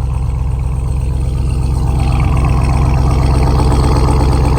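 Vehicle engine idling steadily, getting louder about two seconds in.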